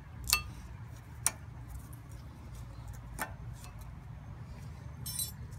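Small metal clicks as spring-steel brake pad hardware clips are pressed onto a disc brake caliper bracket: three single sharp clicks, then a short jingling rattle near the end. A steady low hum runs underneath.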